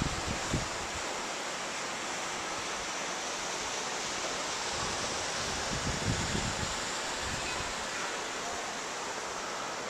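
Steady outdoor hiss of wind, with low buffets of wind on the microphone just after the start and again about six seconds in.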